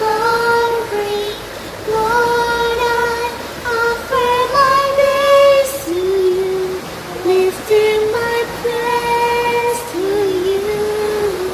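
A woman's voice singing a slow worship melody in long held notes that glide between pitches, over a steady background hiss.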